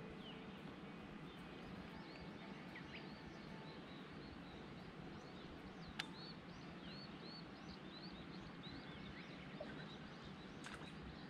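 Birds calling in many short, high chirps over a steady background hiss, with one sharp click about six seconds in and a fainter click near the end.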